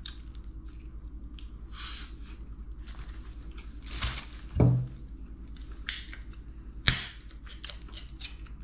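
A person chewing and crunching on a piece of braised meat, with scattered short clicks and crackles, over a steady low hum. A brief low voiced murmur comes about halfway through.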